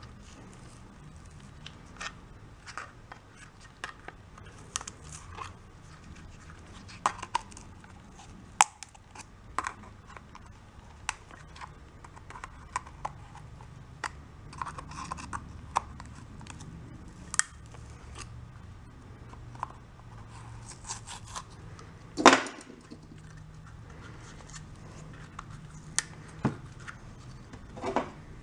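Wire cutters snipping and tearing through the pleated element of an oily engine oil filter, with scattered clicks and crinkles and one louder snap about three-quarters of the way through.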